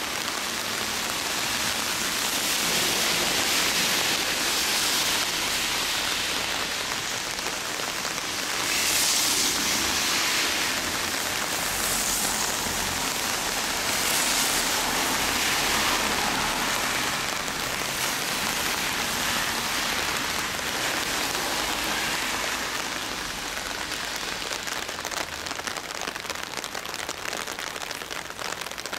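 Steady rain falling and splashing on hard wet surfaces, a continuous hiss that swells louder a few times.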